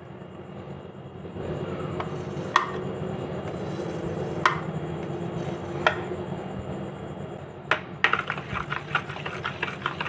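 Kitchen utensils clinking sharply a few times, then a fast run of light taps at about five a second near the end, over a steady low hum.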